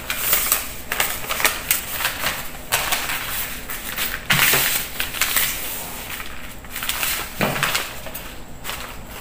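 Sheets of newspaper rustling and crinkling as they are unfolded, spread and smoothed flat by hand, with louder flurries of rustling now and then.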